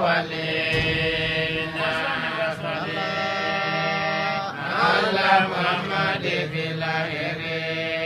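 A voice chanting a Quran recitation in long held notes, with ornamented turns in pitch between them.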